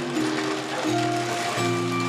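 Background music of held, sustained chords that change every second or so, with a soft hiss laid over them.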